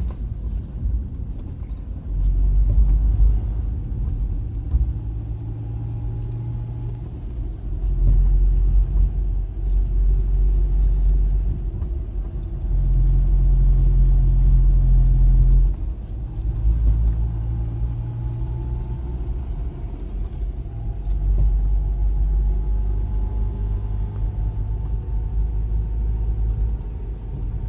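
Subaru Impreza running, a low rumble that rises and falls in stages, with an abnormal noise that the owner marks about three seconds in and again about twenty-two seconds in.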